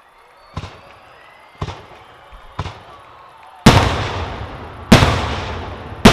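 Aerial firework shells bursting: three lighter bangs about a second apart, then three much louder booming bursts, each trailing off in a long rolling echo.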